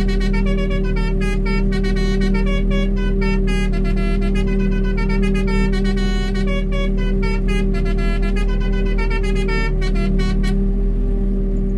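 Musical vehicle air horns playing a quick tune of short, stepped notes, stopping near the end, over a steady low hum.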